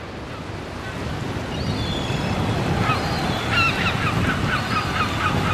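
Surf rushing, fading in, with a bird calling over it. From about three seconds in the bird gives a quick run of short, high squawks, several a second.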